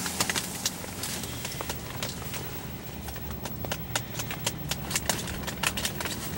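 Irregular light clicks and taps, coming more often in the second half, over a low steady hum.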